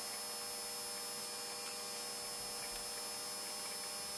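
Steady electrical hum with a faint hiss from an Akatherm CB315-U electrofusion welder partway through a weld cycle, driving about 105 V and 4.7 A into a load resistor.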